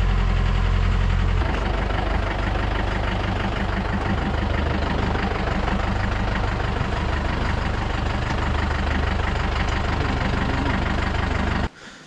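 Off-road jeep's engine running steadily while driving along a rough, muddy dirt track. The engine note changes about a second and a half in, and the sound cuts off abruptly near the end.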